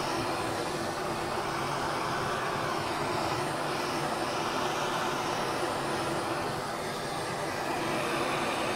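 Kitchen blowtorch flame running steadily, a continuous hiss, as it caramelizes the sugar topping of crema catalana into a crisp crust.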